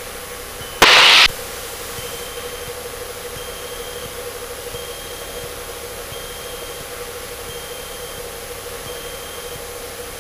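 Steady drone of the Cessna 152's four-cylinder Lycoming engine and airflow inside the cabin in flight, with a faint high tone coming and going about every second and a half. About a second in, a loud half-second burst of hiss starts and stops abruptly.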